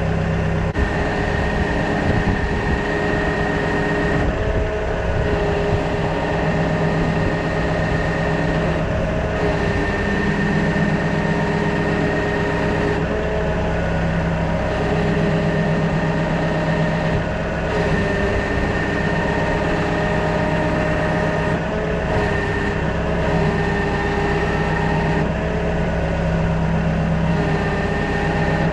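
Kubota tractor engine running steadily, with higher whining tones that come and go every few seconds.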